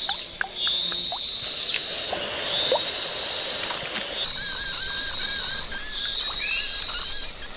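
Animal calls repeating: four high, steady notes of about a second each with short gaps, joined in the second half by a lower chirping call, over a few light taps and drips as fruit pieces drop into a bamboo tube.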